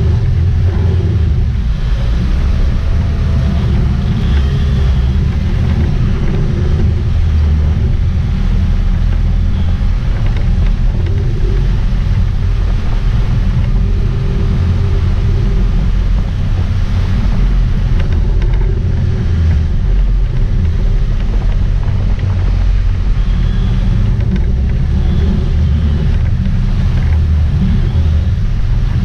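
Sportfishing boat's engines rumbling steadily, with wind buffeting the microphone and water churning at the stern.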